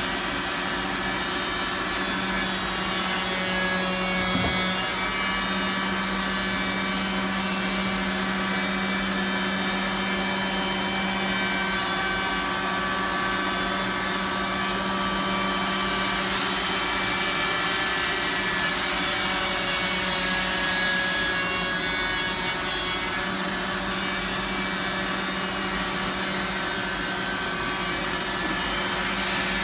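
Vector Revolution 180 CNC contour edgebander running: a steady machine hum with a thin, high whine held above it.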